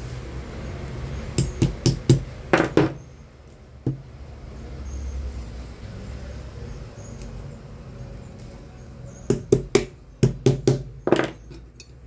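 Sharp metal taps on a desk fan motor's end cap held on a steel bar, as the retaining tabs over a newly fitted bushing are locked down. The taps come in two quick runs of several strikes, about a second in and again near the end.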